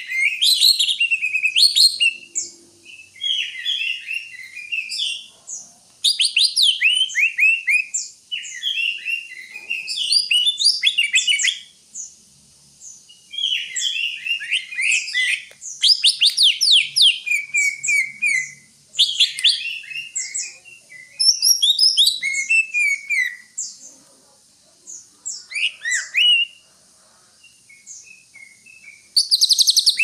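Cucak hijau (greater green leafbird) singing: varied, rapid phrases of chattering and quick downward-sweeping whistled notes, in bursts of one or two seconds with short pauses, growing sparser near the end.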